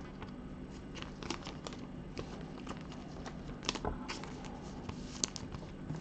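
Light plastic clicks and rustles of a trading card being slid into a soft sleeve and a rigid plastic top-loader by gloved hands and set down on a stack. The clicks come irregularly, with a sharper one about five seconds in.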